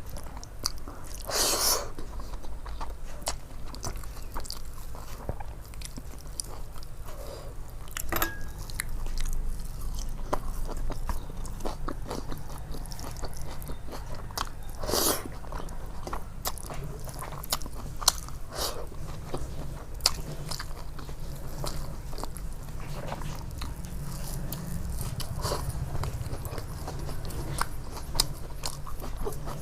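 Close-miked eating: a person chewing and biting food, with many small mouth clicks and two louder bites, one near the start and one about halfway, over a low steady hum.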